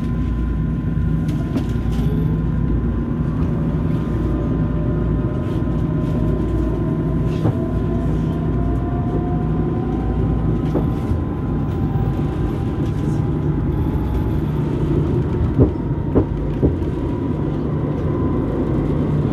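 Eurotram tram running, with a steady low rumble and an electric whine that climbs slowly in pitch over the first ten seconds or so as it gathers speed. There are three sharp knocks about three-quarters of the way through.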